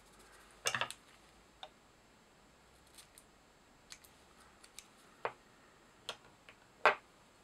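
Scattered small clicks and snips of hands handling fly-tying tools and materials: a quick cluster about a second in, faint ticks in the middle, and sharper single clicks near five and seven seconds in.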